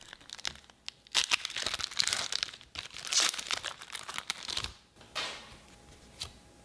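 Foil Pokémon booster pack wrapper being torn open and crinkled by hand, with dense crackling from about a second in until nearly five seconds, then only a faint rustle and a click.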